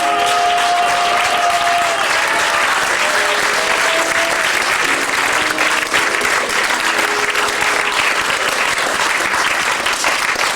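Audience applauding at the end of a song. The last held note of the music fades about two seconds in, and a few more notes sound faintly under the clapping.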